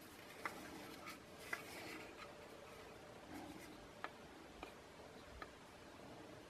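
Faint handling of a Blaupunkt HR10BT radio: its cabinet rubbing against hands as it is turned over, with a handful of light plastic clicks, including clicks of its front-panel buttons being pressed about four seconds in.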